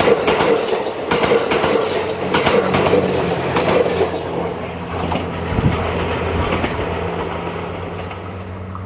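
Series 87 diesel train passing over the rails: wheels clicking over the rail joints above a steady low engine hum, with the clicking fading out after about five seconds.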